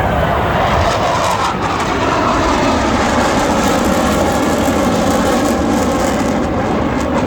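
Jet engines of Blue Angels F/A-18 Super Hornets flying past in a loud, steady roar whose pitch slowly falls.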